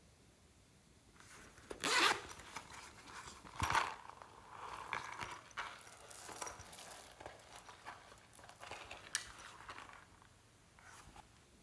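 Zipper on a rainbow-shaped pencil case pulled in two quick strokes, about two and three and a half seconds in, followed by softer handling rustles.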